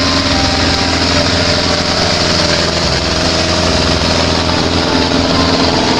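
Diesel farm tractors and a forage harvester running steadily during a maize silage harvest. It is a loud, even engine sound with no change in pitch.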